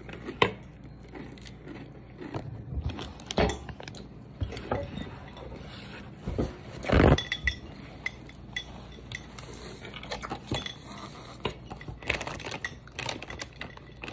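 Cutlery clinking and tapping against a plate during a meal, in scattered short clicks, with one louder burst of noise about seven seconds in.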